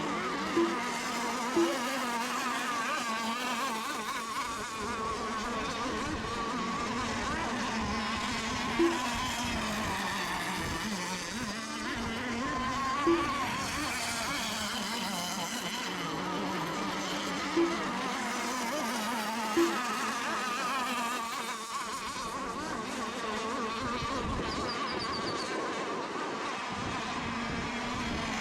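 Several radio-controlled race boat engines buzzing at high revs, their whine rising and falling as the boats run the course. Short sharp beeps cut in six times.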